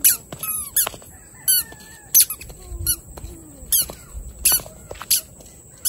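Toddler's squeaky shoes chirping with each step, a short falling squeak about every two-thirds of a second.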